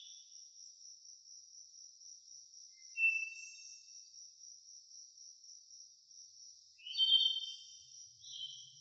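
Insects trilling steadily at a high pitch, with short chirping calls about three seconds in and again near the end.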